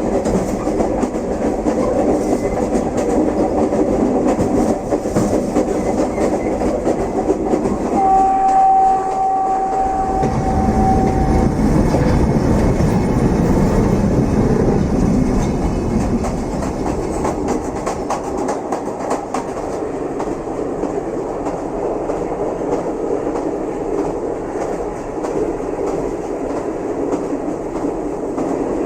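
A train running along the track: a steady rumble and clickety-clack of wheels over the rails. About eight seconds in, a steady tone sounds for roughly three seconds.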